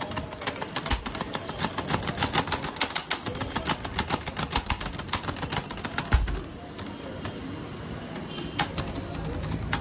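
Knife rapidly chopping lychees on a cutting board: a fast run of sharp taps that stops about six seconds in, with a few more taps near the end.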